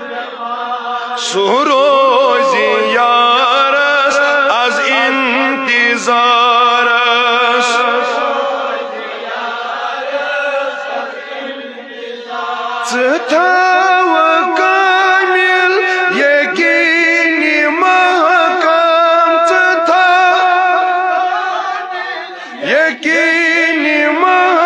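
A voice singing a devotional chant in long, wavering, ornamented phrases, with short breaks about halfway through and near the end.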